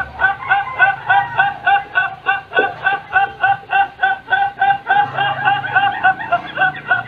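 A man laughing in a fast, even rhythm of short, high-pitched notes, about four a second, played back from a video.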